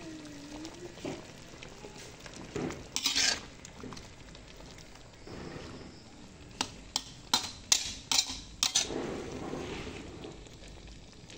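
Metal spatula stirring and scraping bee larvae and sour bamboo shoots in a metal wok. A louder scrape comes about three seconds in, and a quick run of sharp clinks of spatula on pan about two-thirds through.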